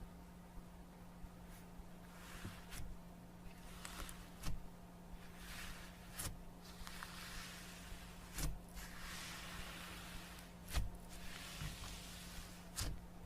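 Slime being squeezed, stretched and poked by hand, giving a series of sharp clicking pops between soft hissy crackling swells, over a faint steady hum.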